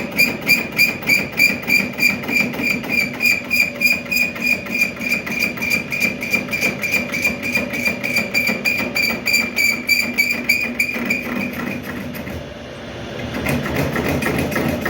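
Metal-turning lathe boring a hardened steel bush, the cutting tool squealing in a steady pulse of about three to four beats a second, likely once per turn of the work. The squeal fades out near the end.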